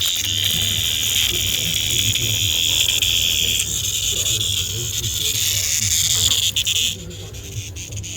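A cicada that has been caught by a cat, buzzing steadily with a harsh high-pitched drone that drops away sharply about seven seconds in.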